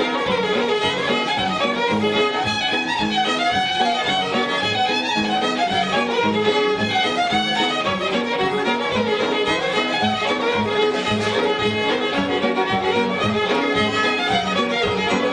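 Instrumental music with a fiddle playing a run of quick notes over a steady rhythmic accompaniment.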